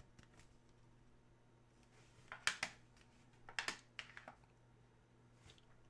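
Trading cards being handled: soft clicks and rustles of cards and their holders, in two short clusters about two and a half and three and a half seconds in.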